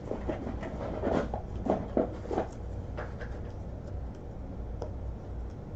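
Trading cards being handled and slid against one another: soft scratchy rubs and light clicks, busiest in the first half and then only a few faint clicks.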